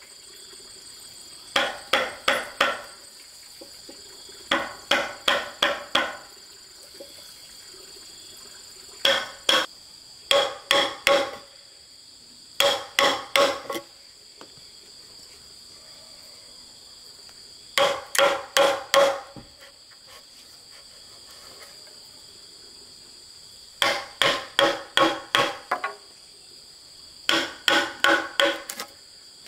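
Hammer striking a steel chisel into a wooden beam, in quick runs of several sharp blows with pauses of a few seconds between runs. A steady high insect buzz runs underneath.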